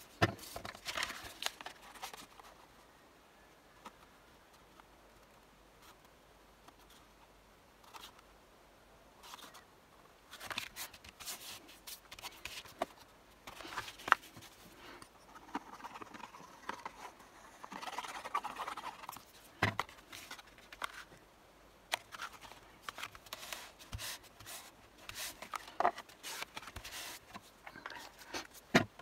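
Sheets of card and paper handled on a cutting mat: scattered rustling, sliding and light taps as pieces are picked up, shuffled and set down, with a few sharper clicks.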